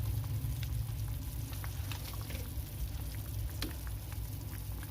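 Pot of chicken soup boiling on the stove: irregular small bubbling pops over a steady low rumble.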